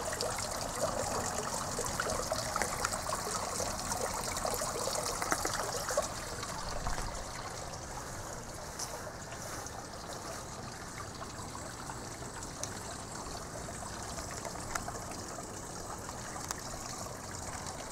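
Water trickling steadily from a small garden fountain, a little softer from about six seconds in.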